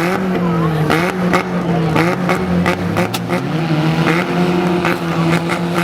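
Demolition derby cars' engines running loud and steady, with some revving and a string of short, sharp bangs at irregular intervals.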